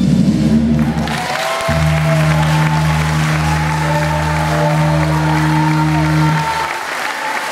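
Recorded dance music ending on a low chord held for about five seconds, while an audience breaks into applause and cheering about a second in; the chord cuts off near the end and the applause goes on.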